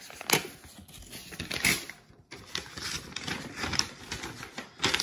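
Paper rustling, with irregular clicks and light knocks from hands handling a folded paper slip and items on a wooden desk.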